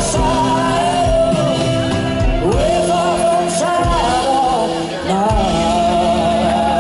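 Live band music with a woman singing long, held notes that scoop up into pitch, over bass and drums.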